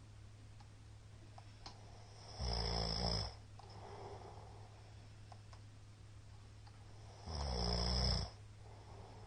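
A man snoring loudly: two long snores about five seconds apart, each lasting about a second, with quieter breathing between them over a steady low hum.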